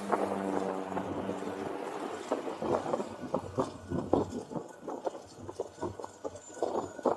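A cyclist breathing hard in short, uneven gasps while pedalling a fixed-gear bike up a hill, with a low steady hum in the first second and a half.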